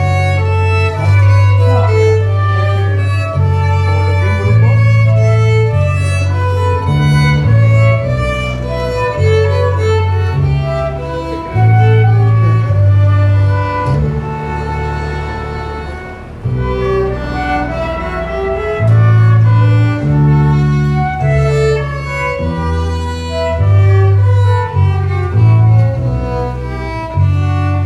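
Baroque music played live on bowed strings: a violin melody over a low bowed bass line moving in steady notes.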